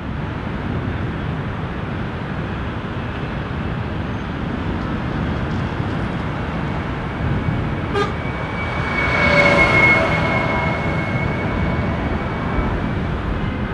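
Steady noise of heavy multi-lane ring-road traffic. A vehicle horn sounds for about a second and a half, roughly nine seconds in.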